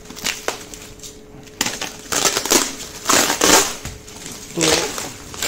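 Plastic wrap and foam packing crinkling and tearing as they are cut and pulled off a subwoofer, in several crackling bursts starting about one and a half seconds in, after a few light clicks.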